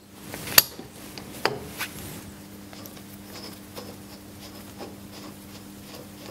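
A 40-taper cutter arbor being seated in a Deckel milling head's spindle while the drawbar is screwed in: two sharp metal clicks in the first second and a half, then light rubbing and a few faint ticks, over a steady low hum.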